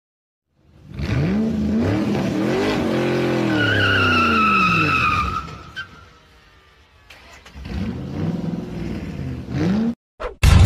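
A car engine revving up and back down, with a tyre squeal in the middle of the rev, then a second shorter rev climbing in pitch. Something loud cuts in abruptly at the very end.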